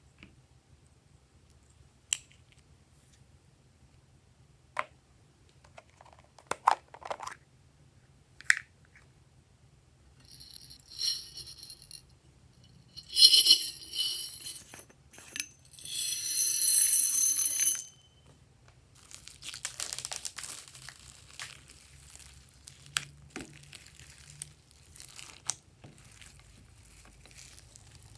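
Glossy slime being handled and mixed by hand, with sticky clicks and crackling pops. A few sharp clicks come first, then louder crinkly crackling bursts near the middle, then softer steady crackling to the end.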